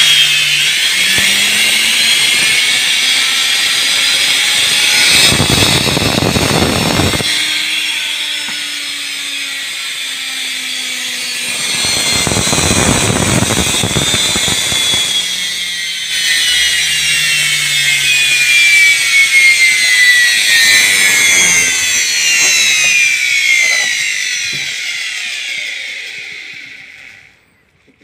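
Indesit washing-machine brushed (universal) motor running free on the bench off mains power through a series heating element, a steady high whine that is a bit noisy, which the repairer puts down to slightly noisy bearings; the cold heating element shows the motor draws no excess current. Twice a louder rushing noise joins in for a couple of seconds, and in the last several seconds the whine falls in pitch as the motor slows and stops just before the end.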